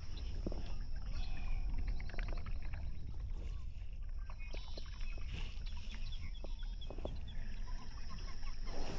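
Wind buffeting the microphone, with birds calling and scattered small clicks and knocks.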